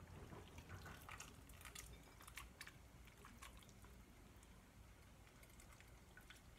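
Faint scattered clicks and small liquid splashes of a ladle scooping soup from a pot and tipping it into a ceramic bowl, mostly in the first few seconds; otherwise near silence.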